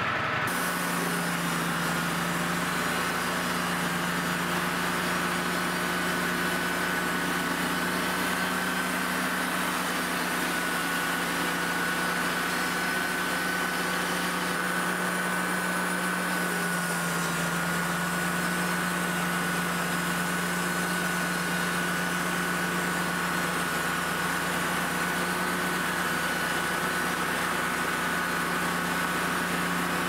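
Wood-Mizer LT35 portable bandsaw mill running steadily as its band blade saws through a hemlock log: an even engine hum with a steady high whine over it.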